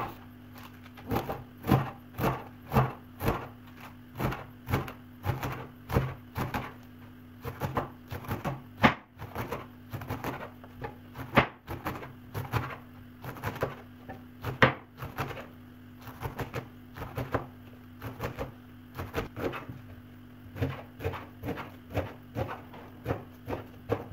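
Kitchen knife chopping rape greens on a wooden cutting board: a steady run of sharp knocks, about two or three a second.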